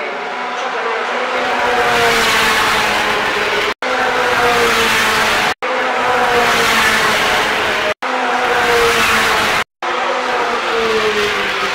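Ferrari Challenge race cars' V8 engines passing at speed, one after another, the engine note falling in pitch on each pass. The sound cuts off abruptly and resumes several times.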